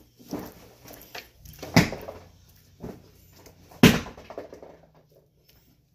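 Kitchen handling noises: scattered knocks and clatter, with two sharp, louder knocks about two seconds and four seconds in.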